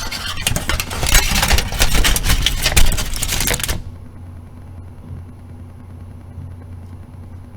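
Computer speaker humming and buzzing steadily from Wi-Fi router interference. A loud, dense crackling lies over the hum for about the first four seconds, then stops abruptly, and the hum carries on quieter.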